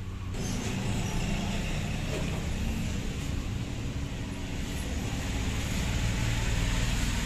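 Steady background noise with a low rumble and a hiss, starting abruptly just after the start and cutting off at the very end.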